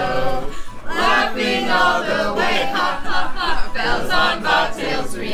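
A small group of carolers singing a Christmas carol together in chorus.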